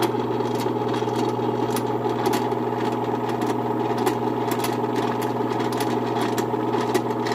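Genie CH130 garage door opener running steadily: an electric motor hum with light clicking and rattling from the drive.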